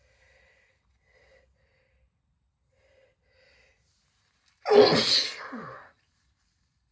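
A person with a cold sneezing once, loudly, about two-thirds of the way in; the sneeze lasts about a second and trails off. A few faint, short catching breaths come before it.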